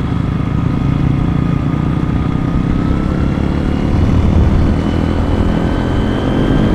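Motorcycle engine running steadily while riding at road speed, with road and rushing-air noise; it gets a little louder about four seconds in.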